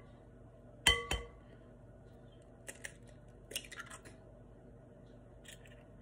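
Two sharp, ringing clinks in quick succession about a second in, a hard object knocked against the rim of a mixing bowl, followed by faint light clicks and rustling.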